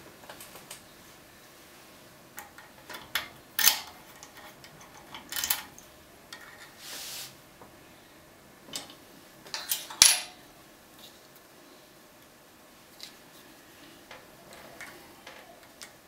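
Scattered metallic clicks and clinks as a key and lock-picking tools are handled at a CES euro-profile lock cylinder held in a vise, with a short scrape in the middle and the loudest click a little past halfway. Fainter small ticks follow near the end as a pick works in the keyway.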